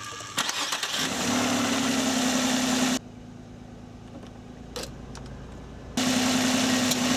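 Nissan 3.0 V6 idling under the hood with the electric radiator cooling fans running at low speed, switched on by the A/C: a steady hum with one low tone, growing louder over the first second. About three seconds in it gives way to the much quieter car cabin with a single click, and it comes back about six seconds in.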